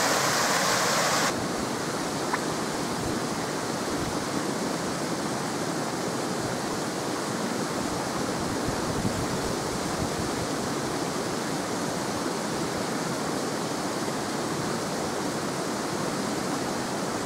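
Rushing water of a fell stream and its small waterfalls, a steady rush. It is louder for the first second or so, then drops abruptly to a lower, even level.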